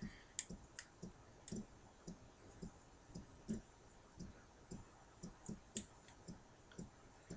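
Faint, irregular small plastic clicks and taps, about two a second, from a plastic action figure being handled and its limbs moved.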